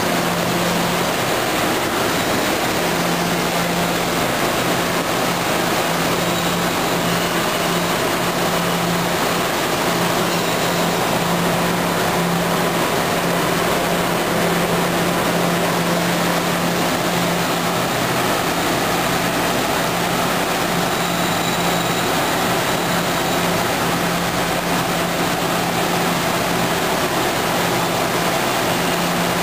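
Steady rumble and running noise of MBTA Green Line light-rail trains in an underground subway station, with a steady low hum that drops out briefly now and then.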